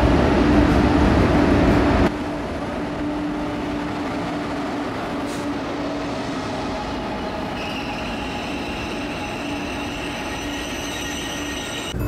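Korail passenger train rolling in along the platform, a steady rumble with a low hum. About halfway through, a high squeal joins in as it comes in to stop.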